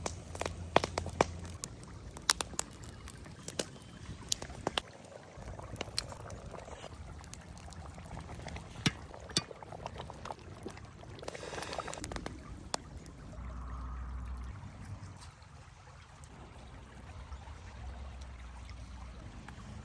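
Liquid being poured for a second or two about midway, among scattered sharp clicks and knocks.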